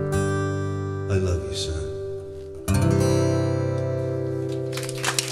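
Acoustic guitar chords ringing out at the end of a song. A final chord is strummed about two and a half seconds in and left to fade. Audience applause breaks out near the end.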